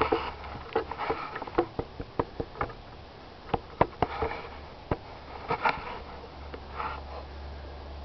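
Irregular sharp clicks and taps, with a few short rustles, over a low steady hum.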